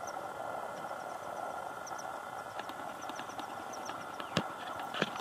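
Steady outdoor background hum with faint, evenly repeated high chirps, and a few sharp clicks in the second half.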